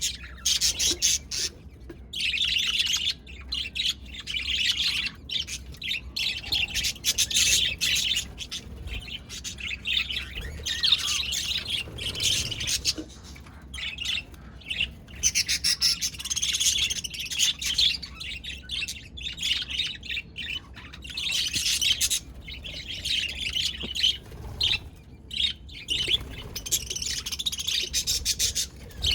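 Budgerigars chirping and chattering in rapid, overlapping bunches of high chirps, broken by short pauses.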